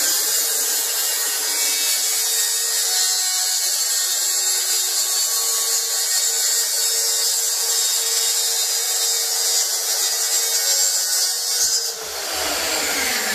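Makita plunge-cut track saw running along its guide rail, cutting through a wardrobe side panel with a steady whine. About twelve seconds in the motor winds down, its pitch falling.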